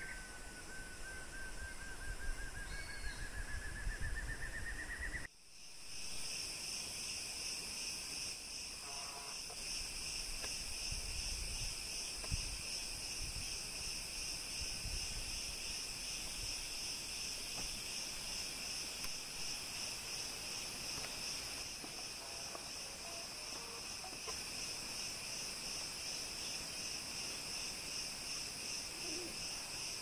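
A black-and-yellow broadbill's song, a long trill of notes slowly rising in pitch, for about the first five seconds. After an abrupt cut, a steady, pulsing insect drone fills the rest.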